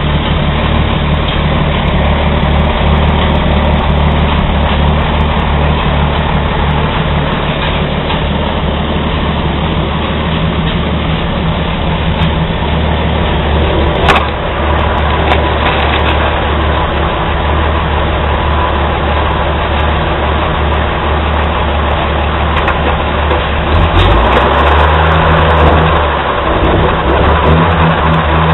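Old Chevrolet stovebolt inline-six engine running steadily in a rolling truck chassis under way. About halfway through there is a single sharp knock, and near the end the engine speed rises for a couple of seconds, then drops back.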